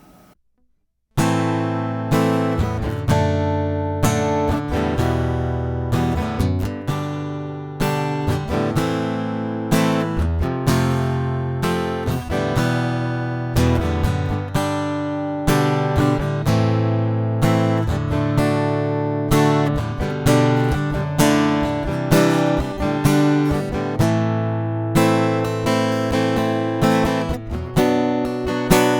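Epiphone Hummingbird Pro acoustic guitar, recorded through its stock Fishman under-saddle piezo pickup, playing chords with frequent strums. It begins about a second in.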